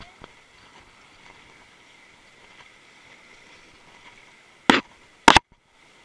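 Steady faint rush of whitewater rapids around an inflatable raft, with two loud sharp hits close to the microphone near the end, about half a second apart.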